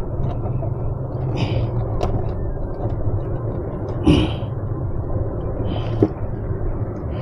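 Steady low rumble of the boat's Mercury outboard engines running. Over it come short rustles of a plastic sheet as a small tuna is handled in the iced fish box, three times, the loudest about four seconds in.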